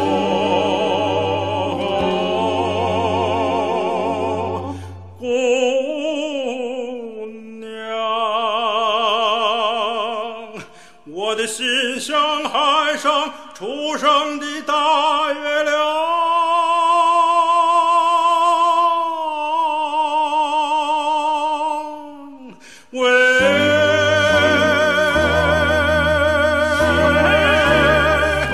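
Background music: a song sung with vibrato on long held notes over accompaniment. The low accompaniment drops out for a stretch in the middle and comes back near the end.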